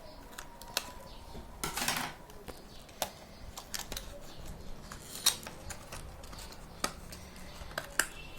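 Hands handling a boAt charging cable's retail packaging while unboxing it: scattered sharp clicks and taps, with a short scraping rustle about two seconds in.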